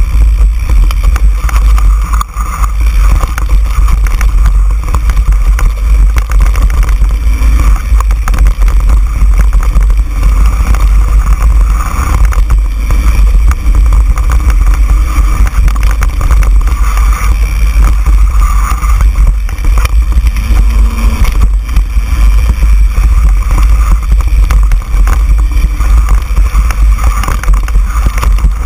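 Wind buffeting the microphone of a mountain bike's mounted camera during a fast descent. The bike rattles and clatters steadily as it runs over a dirt trail.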